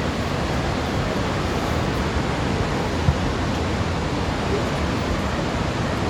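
Steady, loud rushing of the Niagara River's fast water below the whirlpool, an even hiss with no pitch. A single short knock about three seconds in.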